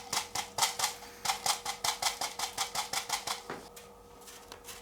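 Wet, gritty bonsai substrate being worked into a pot: a fast, even train of short scratching strokes, about five a second, that stops about three and a half seconds in. A faint steady hum remains underneath.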